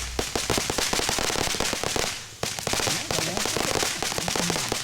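Consumer fireworks crackling: a dense, rapid run of sharp pops and cracks that drops away briefly a little past halfway, then starts up again.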